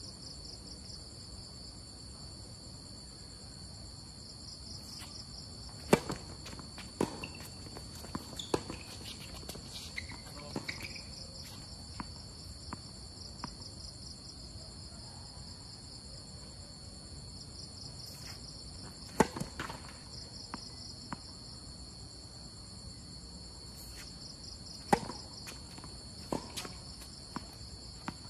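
Tennis balls struck by rackets and bouncing on a hard court during rallies: sharp pops in short runs, the loudest about six, nineteen and twenty-five seconds in. Insects chirp steadily and high-pitched throughout.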